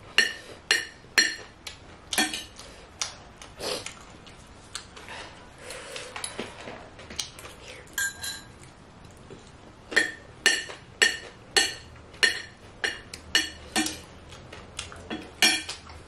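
Metal spoon and fork clinking and scraping against a ceramic plate and bowl while eating. The sharp clinks come in quick runs in the first couple of seconds and again from about ten seconds on, with a quieter stretch between.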